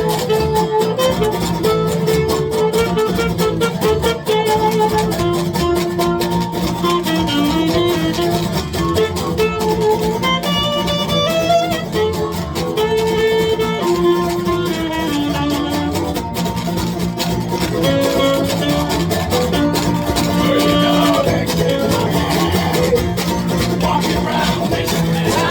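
Folk band playing live, an instrumental stretch with no singing: a melody of long held notes stepping up and down over a steady low drone and strummed accompaniment.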